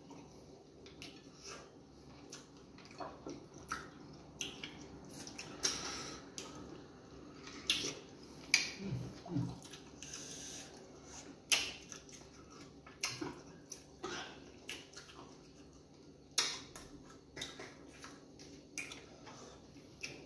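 Mouth sounds of people eating fufu and egusi soup: irregular wet clicks, smacks and squishes of chewing, some sharper than others.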